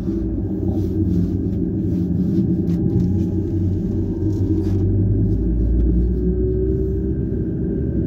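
Steady low rumble inside a moving car driving on a snowy road: engine drone and tyre noise. The lowest note shifts deeper about five seconds in.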